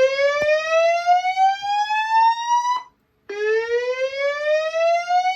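Fire alarm voice-evacuation alert tone, a slow whoop, played through a System Sensor SPSWL wall speaker strobe driven by a Notifier DVC. A loud tone sweeps steadily up in pitch and cuts off nearly three seconds in. After a half-second gap a second sweep begins low and rises again.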